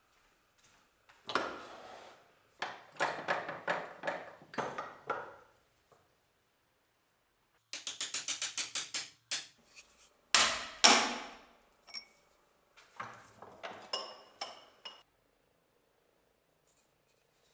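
Hammer blows on a steel drift punch, metal on metal, driving the old wooden handle out of the eye of a rusty bearded axe head held in a bench vise. The blows come in bursts: a quick even run of about five a second around the middle, the two loudest just after, and blows that ring near the end.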